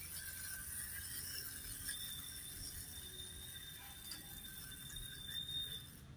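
Small electric motor of a battery-powered toy train whirring as it runs on a plastic track, with a thin steady whine from about two seconds in that stops shortly before the end.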